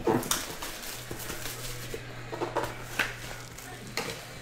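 Sealed trading-card boxes handled on a table: a few sharp knocks and taps as they are picked up and set down, with rustling of their shrink wrap, over a steady low hum.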